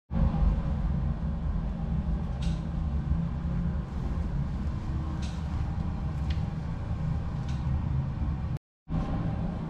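Ski-Doo 850 E-TEC Turbo two-stroke twin snowmobile engine idling steadily.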